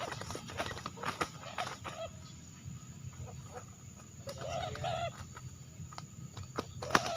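Spotted dove decoy bird (terkukur) cooing: a short run of low burbling coos a little past the middle and another near the end, with scattered sharp clicks in the first two seconds.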